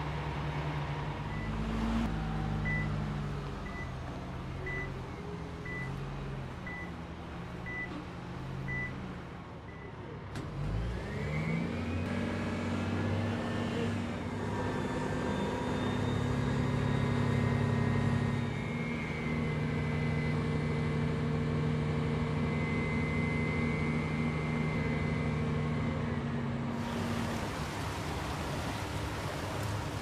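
Slag pot carrier's engine running, with a reversing beeper sounding about once a second. After a cut the engine and hydraulics rise in pitch and hold a steady whine as the arm tips the slag pot. Near the end a broad rushing noise comes in as molten slag pours out.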